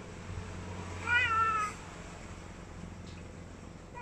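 A domestic cat meowing once, about a second in: one short call that rises slightly in pitch, then falls away.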